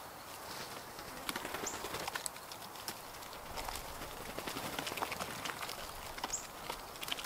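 Blue jays hopping and pecking in dry wood chips and leaf litter: a run of irregular light taps and rustles. Two brief high bird chirps, one about a second and a half in and one near the end.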